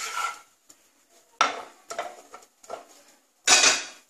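Wooden spatula scraping and knocking in a nonstick kadai while spreading oil around the pan: two short scrapes about two seconds apart, the second louder, with a few light taps between.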